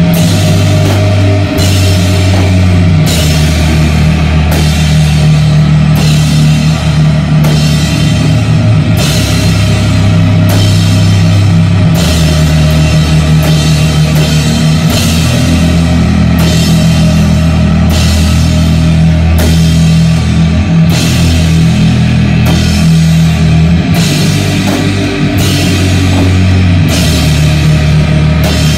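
Live heavy metal band playing loud: electric guitar and bass grinding out a slow, heavy riff over a drum kit. A cymbal is struck about every one and a half seconds, and the low riff notes change every few seconds.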